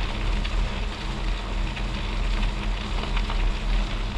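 Studded fat-bike tyre rolling over clear lake ice: a steady crackling hiss with scattered small ticks, over a low rumble.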